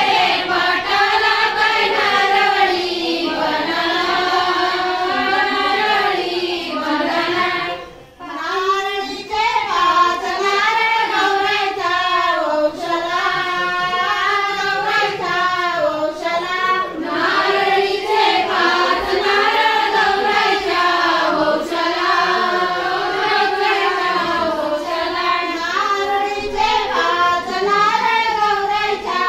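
High female voices singing a melodic folk song together, with a brief pause about eight seconds in.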